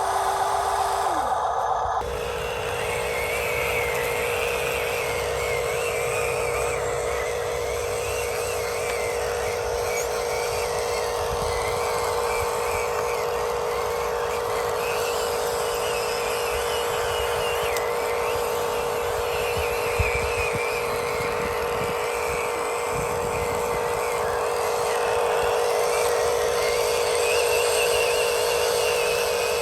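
Small electric motors and gearboxes of radio-controlled construction models whining steadily. The sound changes about two seconds in, and there is a single click later on.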